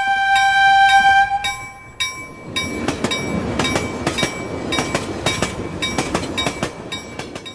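Train horn sounding one held blast for about a second and a half, followed by the rumble and clatter of a train passing. A chiming effect ticks along about twice a second throughout.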